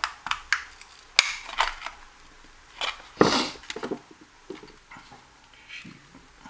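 Plastic battery casing of a DJI FPV drone battery clicking and scraping as a small screwdriver pries at it, with a sharp snap about a second in and a louder rasp about three seconds in. Then light clatter as the screwdriver is set down, and soft plastic clicks as the battery is handled.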